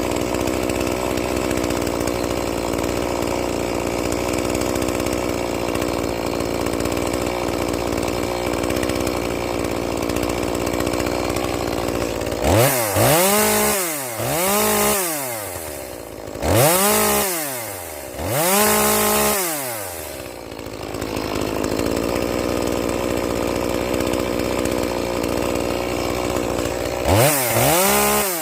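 Echo 2511P two-stroke chainsaw engine, in stock form, idling steadily, then revved up and let fall back four times in quick succession about halfway in, idling again, and revved twice more near the end. The owner thinks the saw is down on power.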